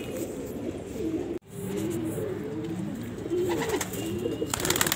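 Domestic pigeons cooing, many low overlapping coos. The sound cuts out for a moment about a second and a half in, and near the end a burst of rapid clicking comes over the cooing.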